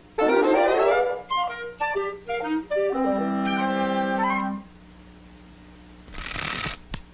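Orchestral cartoon score: a falling run of notes, short staccato notes, then a held chord. It drops quiet about five seconds in, and a brief hissing noise follows near the end.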